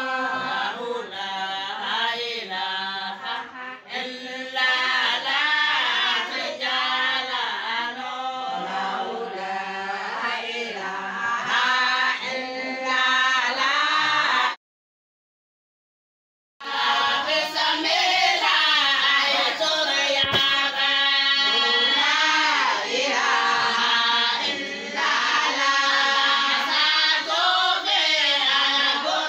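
A group of women singing a Somali Bantu song together in chorus. The sound cuts out completely for about two seconds in the middle, then the singing resumes.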